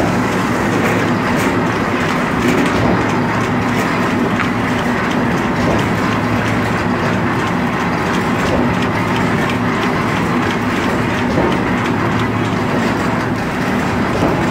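Automatic cardboard V-grooving machine running: a steady mechanical hum with a continuous scatter of light clicks and clatter from its feed and conveyor.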